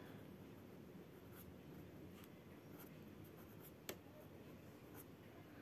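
Faint scratching of a felt-tip pen writing on workbook paper, with one light tick about four seconds in.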